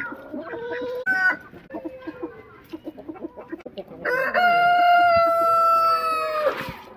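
Chickens clucking in short calls, then a rooster crows once: one long, steady call lasting about two and a half seconds, the loudest sound here.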